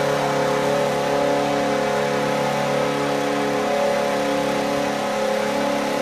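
Nashville Predators' arena goal horn blowing one long, steady chord of several tones, cut off just at the end.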